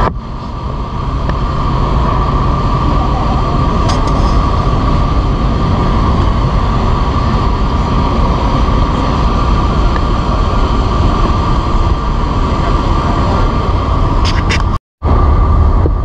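Steady rumbling wind noise on the microphone on the open deck of a cruise ship under way, over a constant hum. The sound cuts out for a split second near the end.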